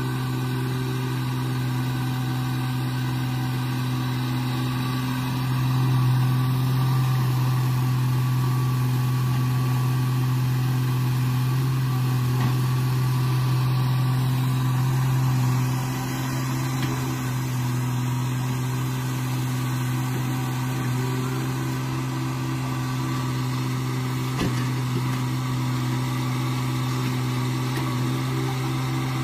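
Sumitomo crawler excavator's diesel engine running steadily while it digs, a little louder from about six seconds in until around fifteen seconds.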